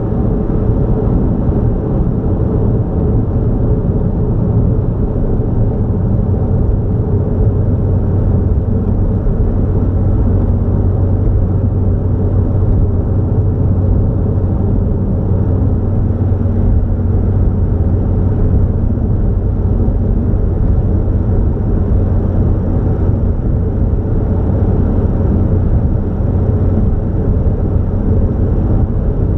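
A car driving steadily along a highway: a constant low rumble of engine and tyre noise that neither rises nor falls.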